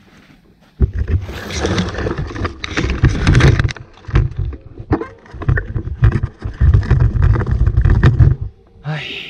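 Ferns and branches brushing and scraping against the camera, mixed with knocks and rattles from a mountain bike on rough, overgrown ground. It starts suddenly about a second in and stays loud and uneven until a short lull near the end.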